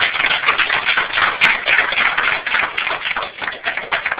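A group of people applauding: a dense patter of many hand claps.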